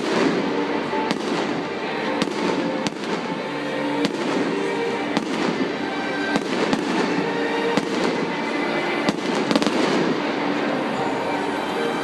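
Stadium fireworks show: shells bursting with sharp bangs roughly once a second over continuous crackling, with music playing along.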